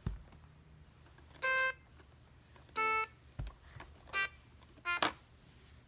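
Anpanman toy keyboard sounding four separate short electronic notes, one key press at a time, about a second apart.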